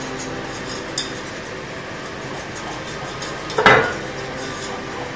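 A utensil stirring thick sauce in a stainless steel saucepan, clinking against the pan, with a light click about a second in and one loud metallic clank a little after three and a half seconds.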